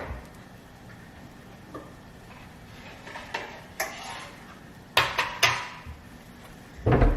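Metal kitchen utensils clinking and knocking: a few light taps, then sharper knocks about five seconds in and again near the end.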